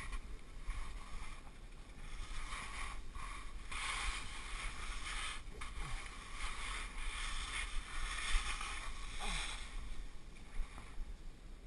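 Skis scraping and sliding through snow in a narrow gully, an uneven swishing that swells and fades as the skier edges down.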